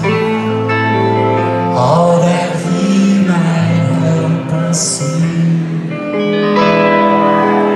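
Rock band playing a slow song live, with long sustained chords and a male voice singing over guitar, heard from the audience in a large hall.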